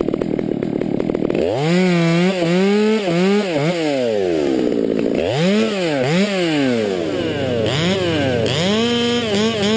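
Stihl MS200T top-handle two-stroke chainsaw cutting through a maple limb, then revved up and down repeatedly from about a second and a half in, blipping between full throttle and low revs.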